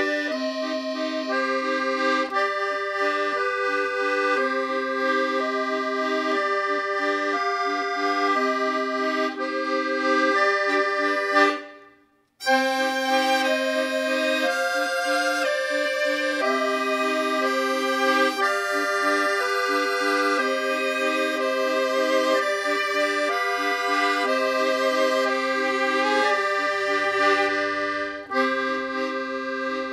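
Accordion music laid over the pictures, a steady tune of held notes. About twelve seconds in it fades out for a moment and then starts again.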